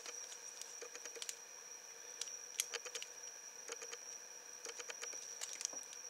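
Faint, irregular clicking of the numbered dials of a four-digit combination cable lock being turned by hand to set the code, some clicks coming in quick runs.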